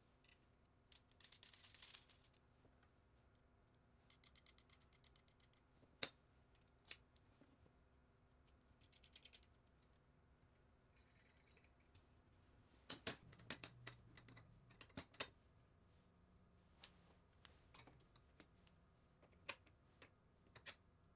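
Quiet handling sounds of parts being fitted together: light clicks and taps of aluminium bars, screws and a steel rod against plywood and glass, with a few short bursts of fast ticking.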